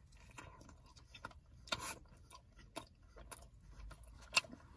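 Close-miked chewing of a soft, chocolate-iced Persian pastry: quiet wet mouth sounds with scattered sharp clicks, the loudest near the end.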